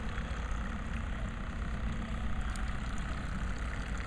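Battery-powered electric drive of a radio-controlled model boat running steadily under way, a faint even hum over a steady low rumble.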